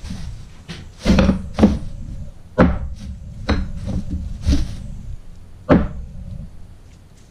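Painted metal intercooler charge pipes handled and set down on a black plastic bag, knocking against each other and the surface about six times, with the plastic rustling between the knocks.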